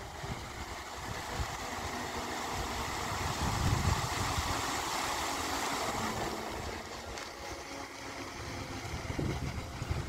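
Water jets of the Wrocław Multimedia Fountain spraying and falling back into the pool, a steady hiss that swells for a few seconds in the middle as more jets fire. Uneven low rumbling from wind on the microphone runs under it.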